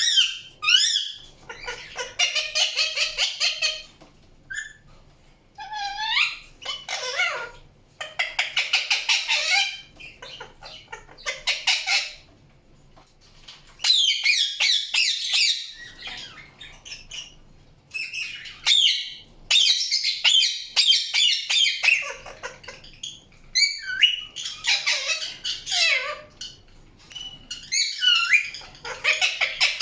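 Indian ringneck parakeet calling: bouts of harsh squawks and rapid chattering screeches, repeated every few seconds with short pauses between.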